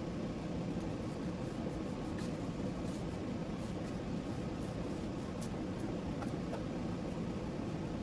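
Steady low hum and hiss of room noise, like a running fan, with faint light ticks scattered through it from the sticker pieces being handled and pressed onto the wall.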